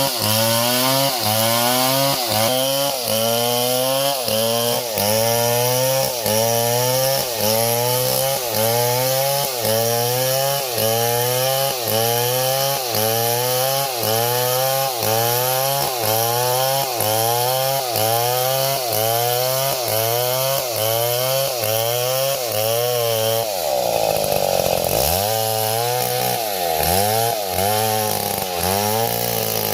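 Small chainsaw running under load, its engine pitch rising and then dropping back about once a second in a steady repeating cycle. About three-quarters of the way through, the engine pitch sags sharply, then climbs back and settles into the cycle again.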